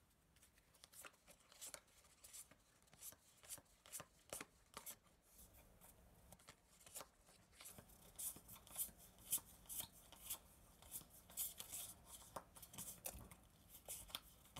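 Bowman baseball cards flipped through by hand, card sliding over card in a run of faint, irregular ticks and rubs, about one or two a second and a little more often in the second half.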